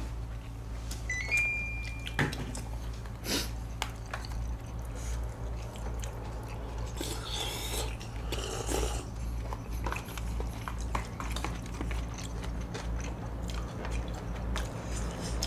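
Close-up eating sounds: chewing, with chopsticks and spoons clicking against foil and plastic takeout containers over a steady low hum. A short electronic beep sounds about a second in as the air conditioner is switched on, and a drink is sipped from a cup around the middle.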